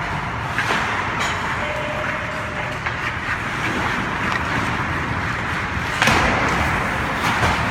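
Hockey game play: a steady wash of rink noise with a few sharp knocks, the loudest about six seconds in.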